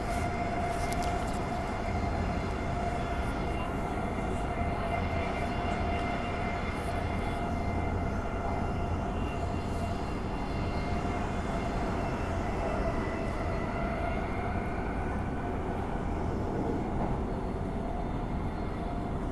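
Bombardier B-series electric multiple unit heard from inside the carriage while running between stations: a steady rumble of wheels on track with a steady high tone over it.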